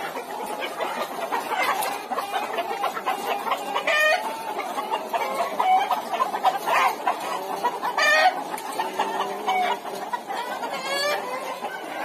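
A shed full of caged Aseel (Peruvidai) chickens clucking and calling over one another in a constant chatter. A few louder calls stand out at intervals.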